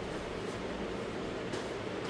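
Steady room noise: an even hiss with a low hum.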